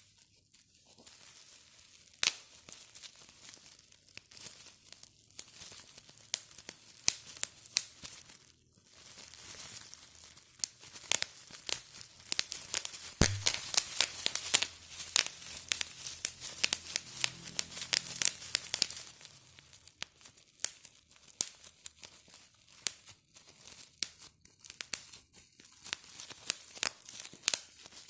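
Plastic bubble wrap being squeezed and popped by hand: a run of sharp, irregular pops over the crinkling of the plastic sheet, thickest for a few seconds midway.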